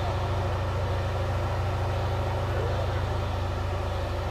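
T-72 tank's V-12 diesel engine running steadily as the tank creeps slowly over a dirt mound.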